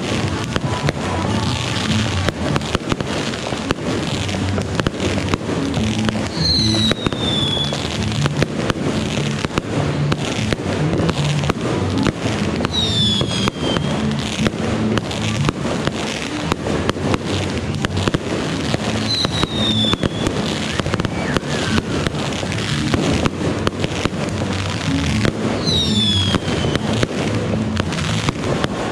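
Aerial fireworks bursting overhead: a dense, unbroken run of sharp bangs and crackling from many shells going off at once.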